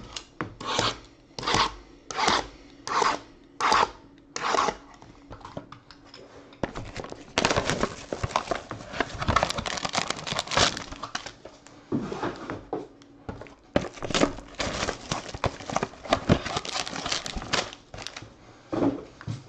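Shrink-wrapped trading card boxes being opened: about seven quick, evenly spaced scraping strokes in the first few seconds, then several seconds of plastic wrap tearing and crinkling.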